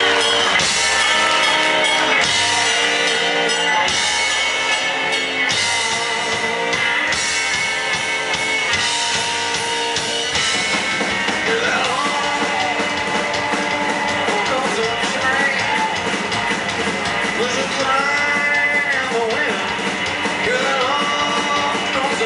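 Live rockabilly band playing, with drums and electric guitar. In the second half, notes slide up and down in pitch over the band.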